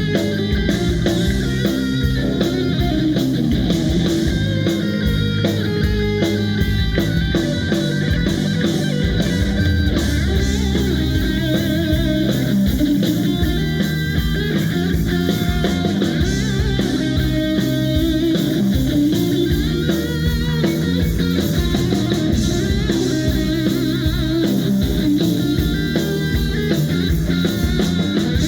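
Rock band playing live: electric guitars over a steady drum kit beat.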